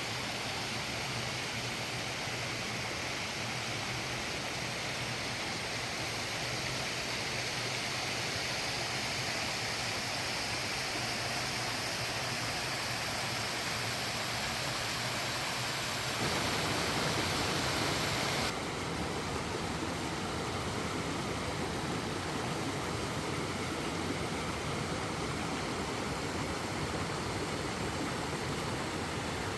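Water of a mountain valley stream flowing in a steady rush. Its tone changes abruptly twice a little past halfway.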